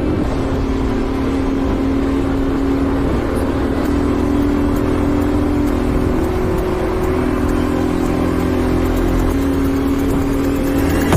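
Kawasaki KSR110's small air-cooled four-stroke single-cylinder engine running under way, its note holding steady and shifting slightly up and down in pitch several times as the throttle changes.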